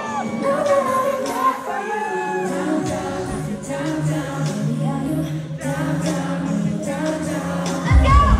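Pop concert music recorded on a phone from the audience: several women singing over a backing track. A steady low note holds from about three seconds in, and a heavy bass beat comes in near the end.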